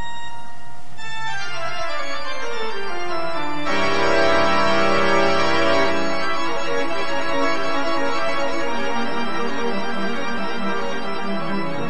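Organ music: a line of notes stepping down in pitch over the first few seconds, then full sustained chords coming in about four seconds in.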